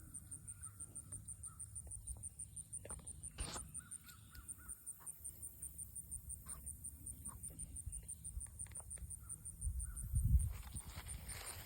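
Crows cawing over an insect's steady, fast, high-pitched ticking, about six ticks a second, with a louder low rumble about ten seconds in.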